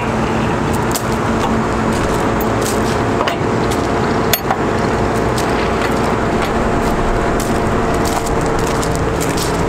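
Caterpillar C7 diesel engine running steadily, driving the crane's hydraulic pump as the hydraulic control levers are worked, with a few sharp clicks.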